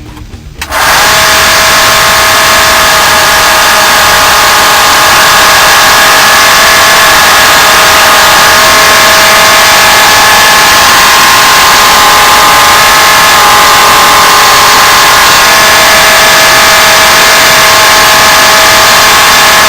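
Electric sander starting up about a second in and then running steadily, a loud grinding hiss with a steady whine, used to regrind the edge profile of a hardened steel knife blade.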